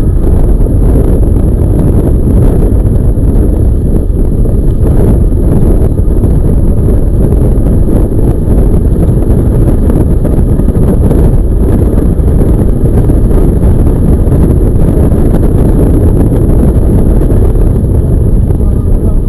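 Heavy wind buffeting on the microphone of a camera riding along on an electric bike, a loud, steady low rumble.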